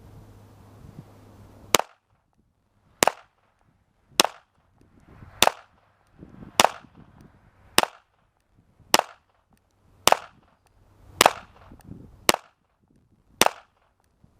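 Unsuppressed Smith & Wesson M&P .22 firing Federal bulk-pack .22 LR: eleven sharp shots at a steady pace of about one a second, starting a couple of seconds in.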